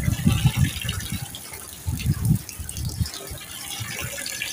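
Heavy rainstorm: a steady hiss of driving rain, with wind gusting across the microphone in uneven low rumbles.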